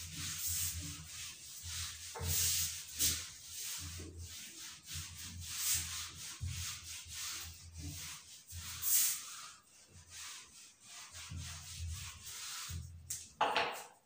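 Whiteboard duster rubbed across a whiteboard in quick repeated strokes, wiping the writing off.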